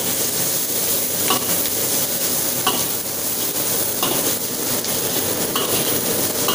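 Chopped shallots, garlic and chilies sizzling in hot oil in a wok while a metal spatula stir-fries them, scraping and knocking against the wok about every second and a half. Underneath runs the steady noise of a blower.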